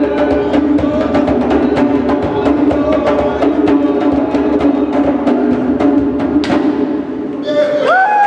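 Djembe drums played fast by hand in a dense ensemble rhythm. The drumming stops with a last stroke about six and a half seconds in, and whooping voices break out near the end.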